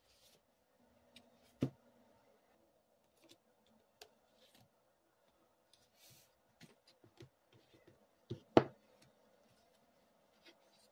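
Paper being handled on a desk: a book's pages and paper fish cutouts rustling, with scattered light taps and two sharper knocks, one about two seconds in and a louder one near the end.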